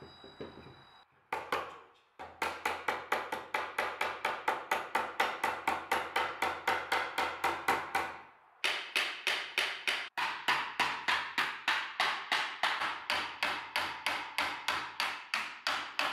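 Wooden mallet tapping rapidly on the edge of a wooden board, driving it down into a fitted joint, about five light blows a second. The tapping stops briefly a little past the middle, then resumes.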